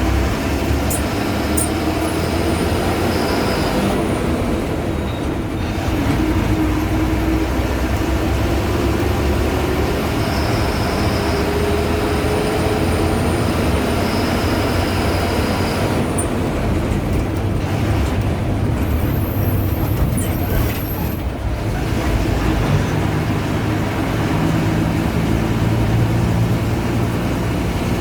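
Ashok Leyland BS4 diesel bus engine running on the move, its pitch rising and falling as it pulls through the gears, with a thin high turbo whistle coming in twice.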